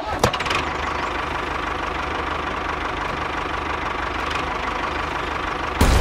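Tractor engine running steadily at an even idle-like rate, with a sharp thump just before the end.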